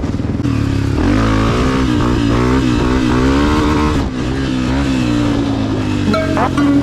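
Honda CRF250F's single-cylinder four-stroke engine with a Pro Circuit exhaust, revving up and down while the dirt bike is ridden, its pitch rising and falling again and again. The throttle drops off briefly about four seconds in, then picks up again.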